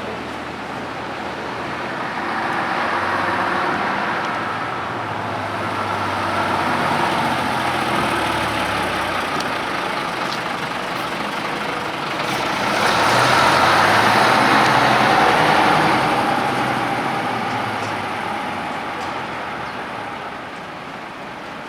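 Nissan Diesel Space Runner city bus pulling in, its diesel engine running with the engine note shifting up and down under tyre and road noise. The sound swells as the bus draws closest, loudest about two-thirds of the way through, then eases off near the end.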